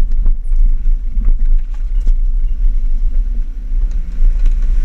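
Four-wheel drive's engine running with a steady low rumble, heard from inside the cab, as it crawls along a rough dirt track; a few sharp knocks and rattles come from the body as it jolts over bumps.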